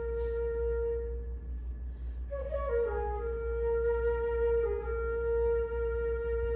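Solo concert flute holding a long low note, breaking into a quick flurry of notes a little over two seconds in and settling back onto the same sustained note, with a brief dip in pitch near the end.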